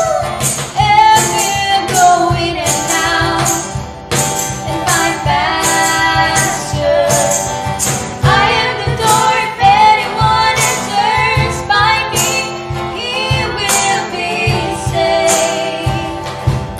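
A Christian song for children: a female voice singing over a steady beat.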